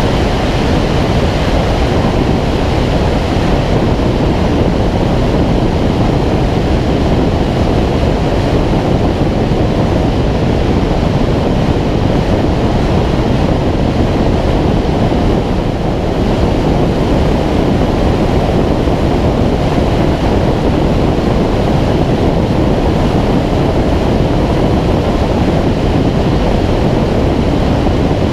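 Steady rush of airflow over a Schweizer 2-33 glider's wing and a wing-mounted action camera in flight, heard as loud, even wind noise on the microphone with no engine.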